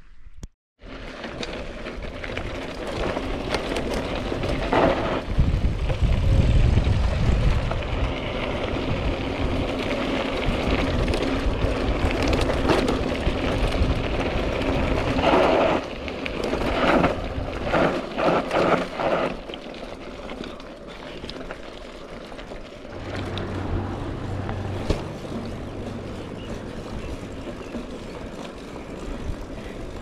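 Mountain bike on the move: wind buffeting the chest-mounted action camera's microphone over the rolling of the tyres on a rough trail, with scattered knocks and rattles from the bike, densest around the middle.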